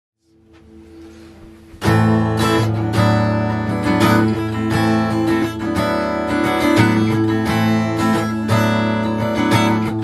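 Band intro of strummed acoustic guitar over electric bass, starting abruptly about two seconds in after a faint lead-in, with no vocals yet.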